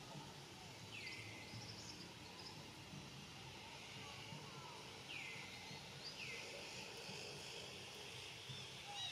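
Faint outdoor ambience: a steady high hiss with three short, high calls that sweep downward, about a second in, around five seconds and around six seconds.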